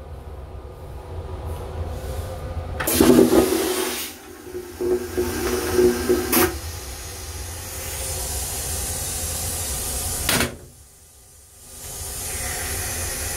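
Train toilet flushing: a steady motor hum with rushing water for about three and a half seconds, then a sharp knock about ten seconds in, over the constant rumble of the moving railcar.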